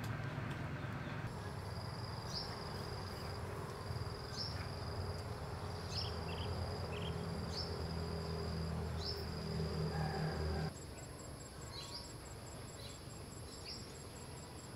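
Outdoor insect chorus: a steady high-pitched drone of crickets or similar insects, with short high chirps repeating about every two seconds. A low hum lies under it and stops about two-thirds of the way through.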